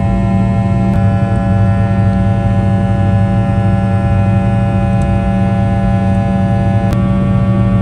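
Jet airliner's rear-mounted turbofan engines during the climb, heard inside the cabin as a steady loud drone with a deep hum and several steady whining tones. The mix of tones changes abruptly about a second in and again near the end.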